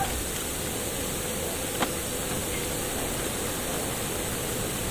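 Steady hiss of background noise with one sharp metallic click a little under two seconds in, as a wrench works on the top nut of a shock absorber mount.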